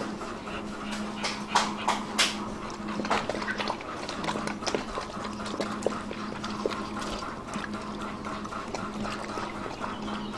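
Dogs eating biscuits and sweet bread: irregular wet chewing, smacking and crunching clicks, a few louder crunches in the first few seconds.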